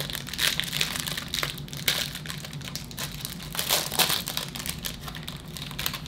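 Baseball card pack wrappers crinkling in irregular bursts as they are opened and crumpled by hand.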